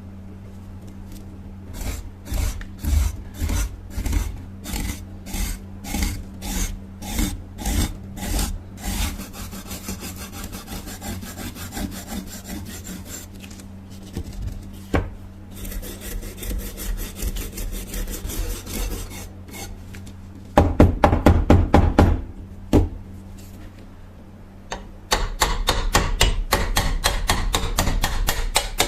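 Hand rubbing and scraping strokes on an old knife: regular strokes about one and a half a second, then quicker, lighter strokes, a loud fast run about twenty seconds in, and a dense rapid run near the end. A steady low hum lies underneath.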